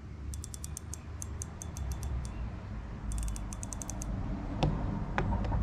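Spinning reel's drag clicking in two runs of quick, evenly spaced clicks as line is pulled off the spool against it, the second run faster, then a couple of single louder clicks near the end. The clicking shows the freshly knotted line is gripping the spool rather than slipping.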